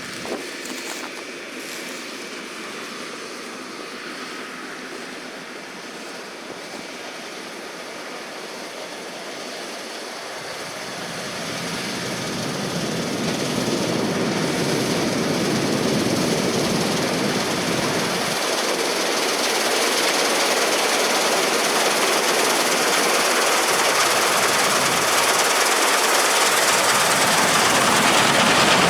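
John Deere 9650 STS combine harvester running as it cuts wheat, a steady machine noise that grows louder from about ten seconds in.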